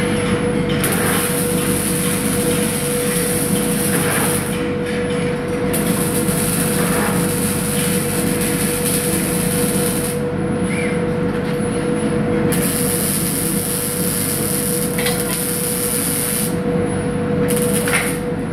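Robotic wire-fed arc welder welding steel, its arc hissing and crackling in stretches of several seconds that stop briefly and start again as the robot moves between welds. A steady hum of factory machinery runs underneath.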